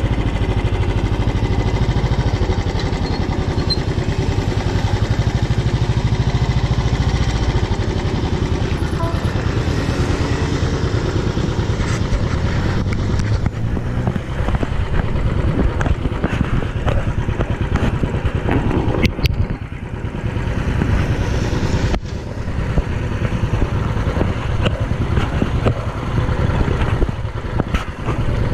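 Royal Enfield Classic's single-cylinder engine and exhaust running under way, a steady deep beat for the first half, then more uneven with a few brief dips in level in the second half.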